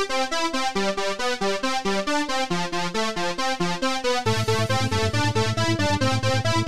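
Electronic outro music: a fast run of repeating synth notes, joined about four seconds in by a pulsing bass line.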